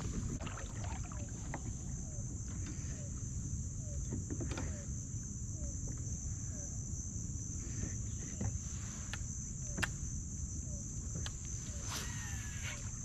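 Steady high-pitched drone of insects over a low rumble, with a soft short falling chirp about once a second and scattered sharp clicks.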